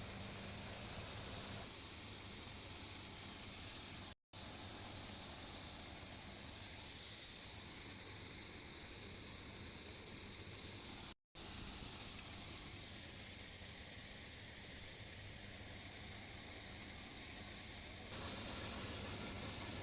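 CLAAS Crop Tiger combine harvester running steadily while cutting maize: a steady hissing rush with a low engine hum beneath it. The sound cuts out abruptly twice for a moment.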